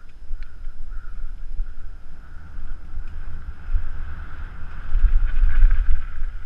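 Wind buffeting the microphone of a rider-mounted camera, with the rumble and rattle of a bike running fast over a rough dirt forest trail, loudest about five seconds in as it drops over a bank.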